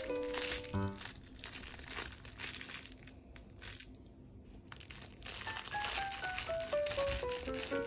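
Crinkle-filled cloth toy rustling and crackling in bursts as a miniature dachshund bites and tugs at it, with a lull around the middle. Gentle background music plays underneath, a falling run of notes near the end.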